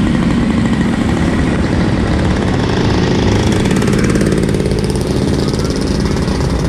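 A small engine running steadily close by with a rapid, even pulsing, over the noise of road traffic.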